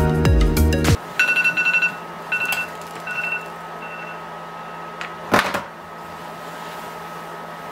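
Background music cuts off about a second in, then an electronic alarm beeps in short repeated pulses that grow sparser and fainter over about three seconds. A single brief rustling thump follows about five seconds in.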